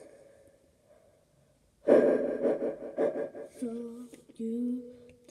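A girl's loud breathy gasp blown straight into a handheld karaoke microphone about two seconds in, followed by three short held sung notes.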